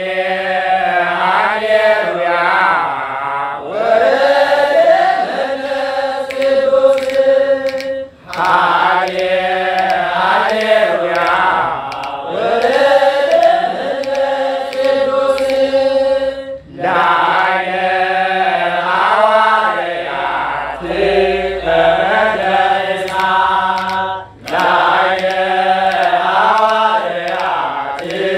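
Ethiopian Orthodox liturgical chant in Ge'ez. Long, ornamented sung phrases bend up and down in pitch and are broken by brief pauses about every eight seconds.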